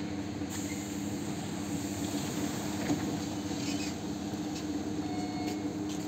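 ET2M electric multiple unit standing at the platform with its electrical equipment running, a steady low hum, with a few light clicks.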